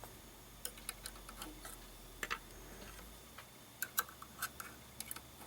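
Faint, irregular small clicks and taps of hands handling the serger's plastic parts and thread while threading it, about a dozen light ticks scattered unevenly.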